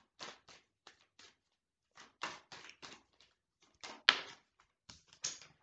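A tarot deck being shuffled by hand: a run of short, irregular card slaps and snaps, the sharpest about four seconds in.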